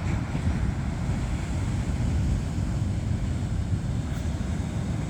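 Wind rumbling on the microphone: a steady, low, unbroken rumble.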